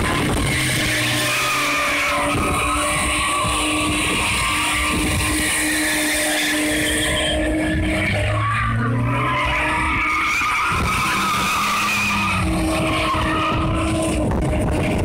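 BMW E30 drifting and doing burnouts, its engine held at high revs while the rear tyres squeal and spin. About halfway through the revs drop briefly and then climb back.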